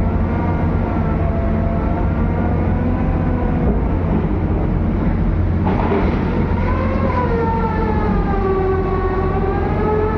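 Piling rig's diesel engine running under load with a steady low rumble, over a whine that slowly rises and falls in pitch and grows louder about six seconds in.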